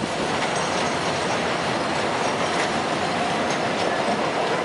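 Container freight train rolling past close by: a steady rumble and rattle of wheels on rails and wagons, with faint high wheel squeal.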